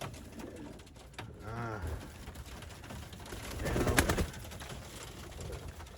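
Domestic racing pigeons cooing, with two low, arching coos about a second and a half in and again around four seconds in, and a few sharp clicks between them.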